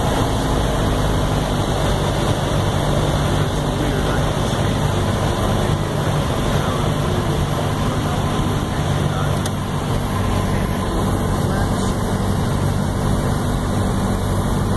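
Piper PA-28-180 Archer's four-cylinder Lycoming O-360 engine and propeller droning steadily, heard from inside the cockpit on the approach to landing, easing slightly about ten seconds in.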